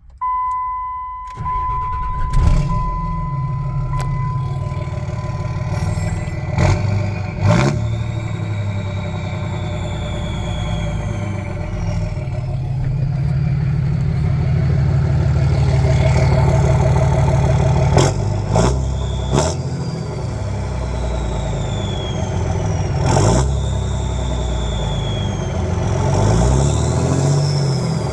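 A short steady electronic chime, then a 5.9 Cummins inline-six turbodiesel cranks, starts and runs, revved several times. A Calibrated Power Stealth 64mm turbo whistles high after each rev, falling in pitch as the revs die away.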